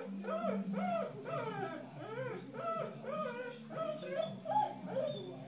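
A young Cardigan Welsh corgi whining in a continuous run of short rising-and-falling whimpers, about two to three a second.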